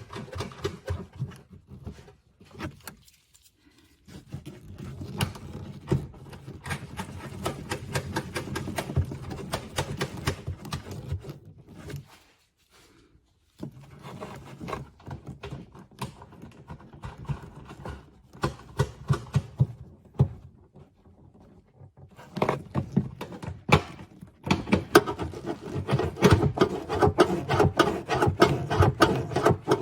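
Rapid clicking rattle of a socket tool running the three taillight mounting nuts down onto their studs, in three stretches of several seconds each with short pauses between them.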